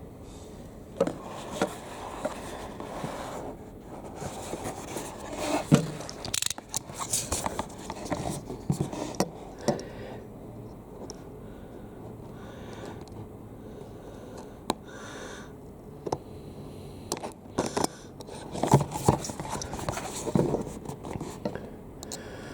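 Cardboard box and plastic packaging of a trading-card starter deck being handled and opened: irregular scraping, crinkling and sharp ticks, with a quieter stretch in the middle.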